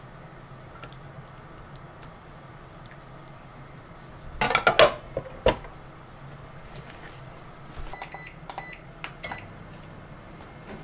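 A burst of crinkling and clicks as plastic cling wrap is stretched over a glass food container, followed by a single sharp click. About eight to nine seconds in, a microwave oven's keypad gives three short electronic beeps as it is set to heat.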